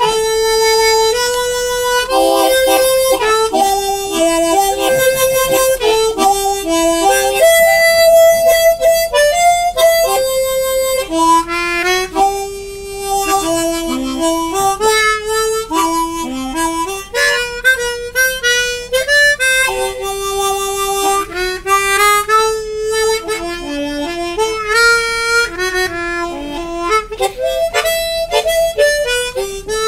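Harmonica played solo, held in cupped hands: a melody of held notes stepping up and down, with chords in places.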